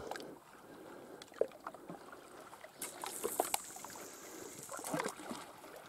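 Quiet scattered clicks of fishing tackle being handled, with a brief high hiss a little under three seconds in as a feeder rig is cast from a spinning rod and line runs off the reel.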